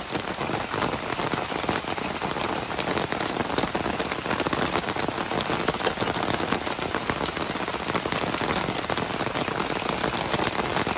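Steady rainfall: a dense, even hiss of many small drop impacts.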